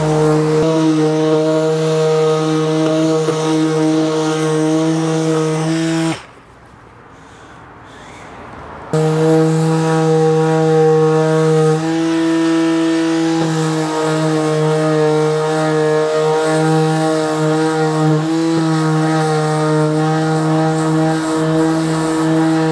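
Handheld electric sander running with a steady motor hum while sanding down cured body filler on a car's wheel arch. It stops about six seconds in and starts again about three seconds later, its tone shifting slightly as the pressure on the filler changes.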